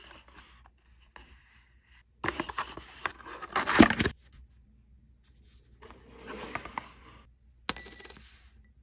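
Cardboard carton of a Tabasco bottle being handled and pulled open, with bursts of paper rustling and tearing, loudest a few seconds in. Near the end comes a sharp click as a small metal dish is set down on the table.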